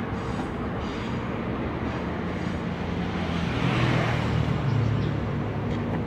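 Hitachi 8 kg top-loading washing machine running at the start of its spin cycle, its motor hum getting louder about halfway through. The machine runs instead of stopping on the C8 door-switch error, a sign that the new door switch has fixed the fault.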